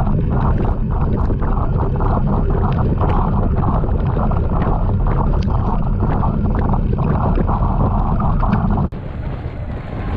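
Wind buffeting an action camera's microphone on a moving road bike, a loud, uneven rush with road noise beneath. Almost nine seconds in it cuts suddenly to a quieter, smoother wind noise.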